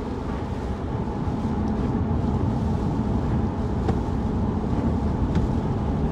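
Steady road and engine rumble inside a moving car's cabin, with two faint ticks about four and five seconds in.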